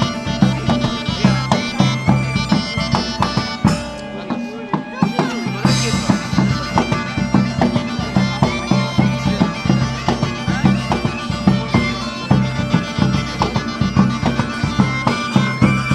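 Live folk music on bagpipes with drums: a bagpipe melody over its steady drone, with regular drum beats. The drone drops out briefly about four seconds in, then returns.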